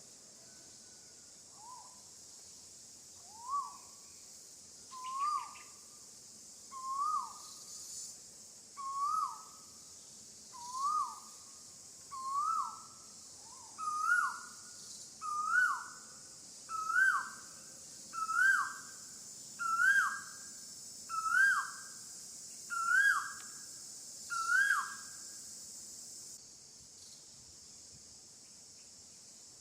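Baby monkey giving a run of about fifteen short whistled coo calls, one every second and a half, each rising and then dropping. The calls creep higher in pitch as the series goes on and stop a few seconds before the end, over steady insect buzzing.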